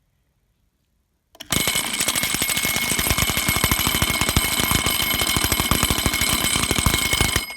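Electric fire alarm bell ringing loudly: its clapper hammers the gong in a rapid, even stream of strikes. It starts about a second and a half in and cuts off near the end, leaving the gong ringing briefly.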